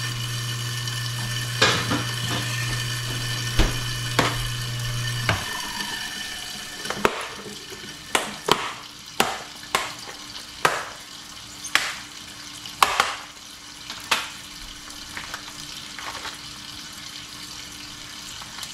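Plastic food packaging crinkling and crackling as it is handled, in sharp rustles about once a second, over a steady hiss. A low hum stops about five seconds in.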